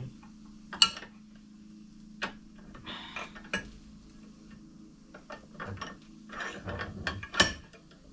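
Metal parts being handled and fitted together by hand: irregular clicks and knocks with shuffling between them, the sharpest about a second in and near the end, over a steady low hum.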